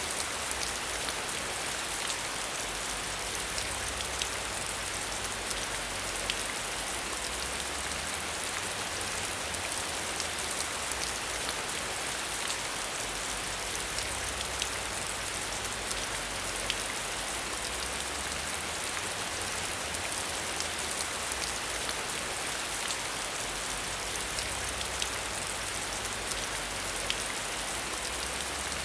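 Steady rain falling, an even hiss with many sharp individual drop ticks. A low rumble underneath swells and fades.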